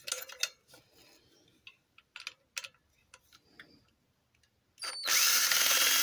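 Power drill with a Phillips bit running on a screw in a microwave magnetron's steel casing: a steady whir for about a second and a half near the end, after a few light clicks of metal being handled.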